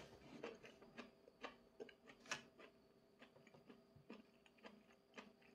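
Near silence: faint, irregular soft clicks from a man quietly chewing a mouthful of food with his mouth closed, over a faint steady hum.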